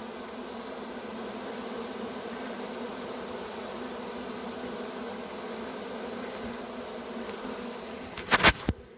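Honey bee swarm buzzing as a steady hum, with a quick run of a few sharp knocks near the end.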